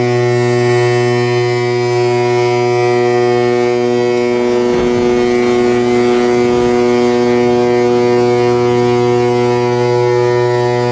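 A ship's horn blowing one long, deep, steady blast to mark the ship's side launch into the water. About five seconds in, the splash of the hull hitting the water is faint beneath it.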